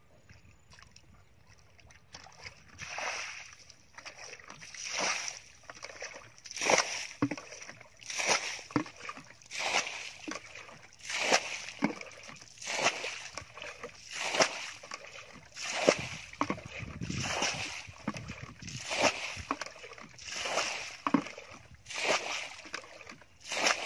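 Metal bucket scooping muddy water from a shallow pool and tipping it out: a splash about every one and a half seconds as the pool is bailed.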